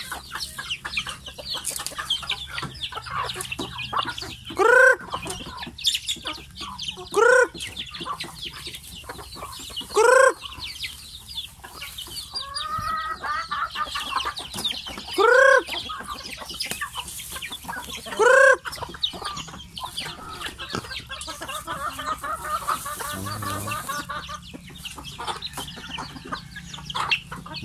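A flock of chickens clucking and chattering continuously, with five loud, short calls standing out a few seconds apart.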